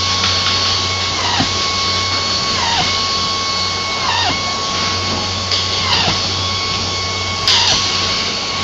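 A power screwdriver whining steadily, its pitch dipping briefly about every one and a half seconds as it drives screws, over a steady low factory hum. A sharp click near the end.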